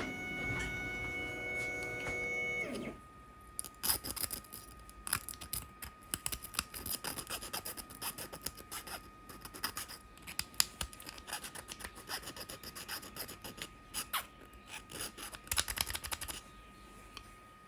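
A held musical chord for about the first three seconds, then a dense, irregular run of small clicks, snaps and scraping as plastic support material is picked and scraped off a 3D print. The clicking dies down shortly before the end.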